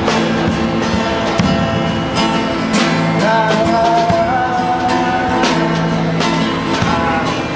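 Live acoustic guitar and drums playing a song, with a sung melody that holds long, wavering notes through the middle.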